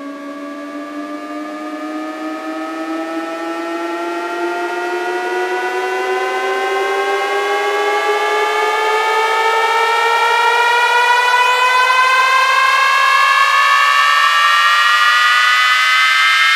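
Electronic synth riser: a layered pitched tone sweeping slowly and steadily upward while swelling louder, the build-up of a DJ bass-test track, with no beat or bass under it.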